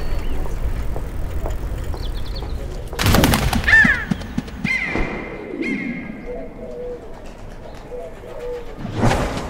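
Pigeons cooing in short repeated low coos, with higher bird chirps and calls. A loud rushing sound comes about three seconds in and again just before the end.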